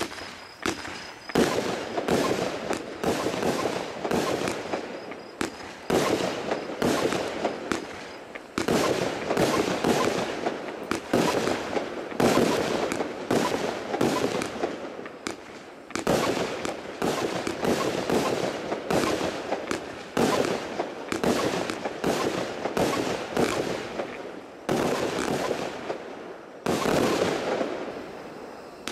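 Zena Kracherblitz firework battery firing shot after shot, each shot bursting into a cluster of rapid crackling pops, with a short lull near the end.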